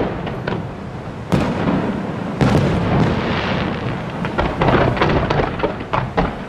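Fireworks display: a continuous low rumble of shell bursts, with sharp reports about one and two and a half seconds in. Near the end comes a rapid run of cracks as ground-fired comets shoot up.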